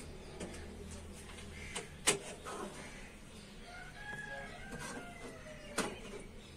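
A bird calling in the background: a drawn-out call of about a second, around four seconds in. Two sharp clicks, one about two seconds in and one near the end.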